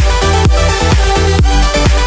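Electronic dance music with a steady beat of about two beats a second.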